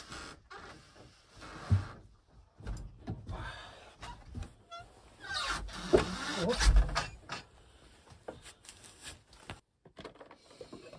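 Handling noises at a wooden table: a knife cutting a loaf of bread on a wooden board, knocks and rubbing of things moved on the table, and a cast-iron pot lid lifted near the end. The loudest knocks and thumps come about six seconds in.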